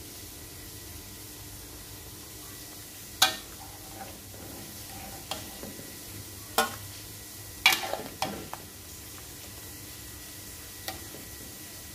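Metal spatula and ladle clinking against an aluminium wok and a stainless steel bowl as fried fish in sauce is scooped out and served. About half a dozen sharp clinks, the loudest a quick cluster about eight seconds in, over a steady low hiss.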